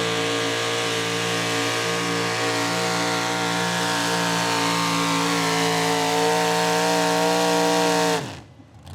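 Competition pulling tractor's engine at full throttle during a pull, holding one steady high note. It stops abruptly about eight seconds in.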